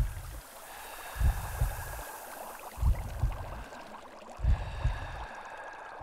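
Water bubbling and gurgling, with a deep double thump, like a slow heartbeat, repeating about every second and a half.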